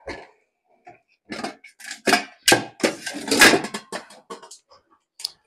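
Metal cookware clattering as it is pulled out of a kitchen drawer: a run of clanks and knocks, the loudest about three and a half seconds in.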